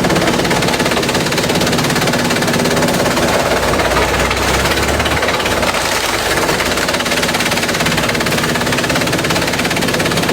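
Industrial bamboo shredding machine running steadily and loudly, a dense, rapid clatter over a steady machine hum.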